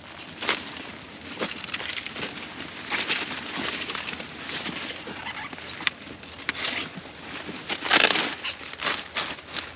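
Cauliflower plants being handled in the field: leaves rustling and crunching in irregular bursts, loudest about eight seconds in.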